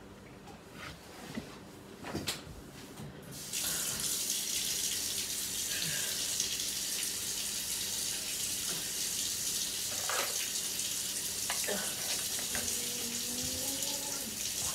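Kitchen tap running steadily from about three and a half seconds in, after a few knocks. Near the end, milk is poured from a plastic gallon jug into a plastic cup.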